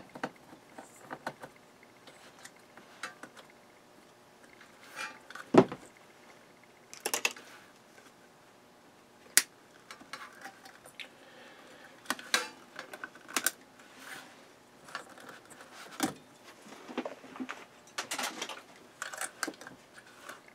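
Scattered metal clicks, clinks and knocks of a PC power supply being taken apart by hand with a screwdriver: tool, screws and sheet-metal case knocking together. The loudest knock comes about five and a half seconds in.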